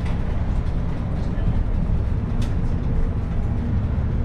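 Steady low rumble of a vehicle in motion, with a few faint clicks and indistinct voices underneath.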